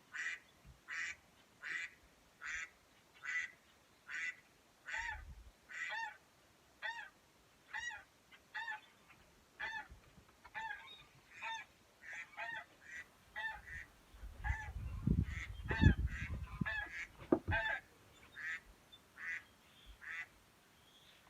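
A phone speaker playing a looping honk-like call sound effect, the same short call repeating evenly about every three-quarters of a second. From about two-thirds of the way in, low thumps and rumbling come in for a few seconds, loudest near the middle of that stretch.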